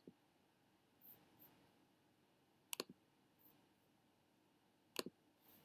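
Computer mouse clicks against a near-silent room: sharp clicks in quick pairs, one at the start, one near the middle and one near the end.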